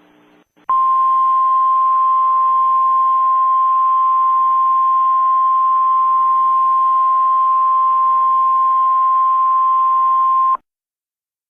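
Emergency alert attention tone: one loud, steady tone near 1 kHz over a faint hiss, starting just under a second in, holding for about ten seconds and cutting off suddenly. It signals that a spoken emergency message follows.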